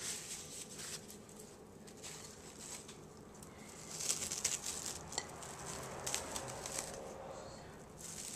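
Thin plastic packaging crinkling and rustling with scattered clicks as it is handled, busiest about four to seven seconds in.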